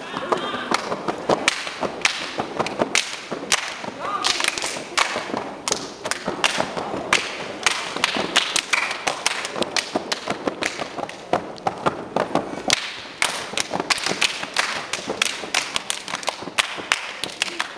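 Step team stepping: a fast, rhythmic run of foot stomps, hand claps and body slaps, several strikes a second.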